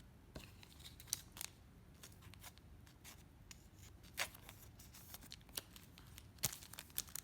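Trading cards being handled and shuffled by hand: scattered light clicks and snaps of card stock.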